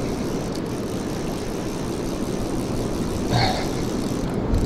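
Steady low wind rumble on the microphone, with a short voice-like sound about three seconds in.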